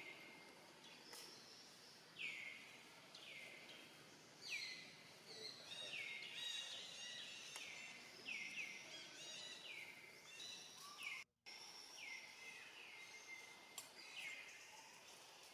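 A bird calling over and over, about once a second: each call a high whistle that falls in pitch and then holds briefly, over faint outdoor background noise. The sound cuts out for a moment about eleven seconds in.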